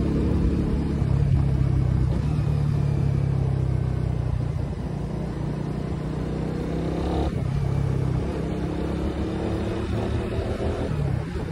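Suzuki Raider R150's single-cylinder engine running under way, heard from the rider's seat with wind on the microphone; the engine note shifts about seven seconds in.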